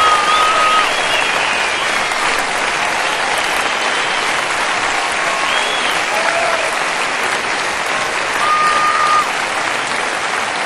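Concert audience applauding steadily after a song, with a few short whistles over the clapping.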